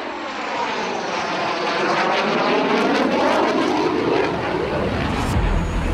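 JAS 39 Gripen fighter jet flying past, its single turbofan engine making a loud rushing jet noise. The noise swells toward the middle with a sweeping, phasing whoosh as the aircraft passes. Background music comes in near the end.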